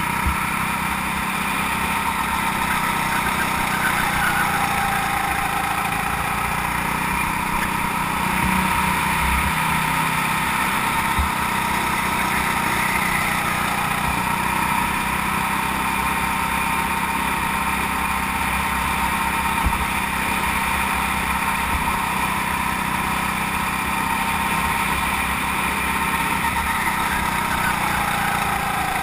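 Go-kart engine running at speed, heard from on board the kart. Its pitch holds steady and dips briefly twice as the kart slows for corners, then rises again.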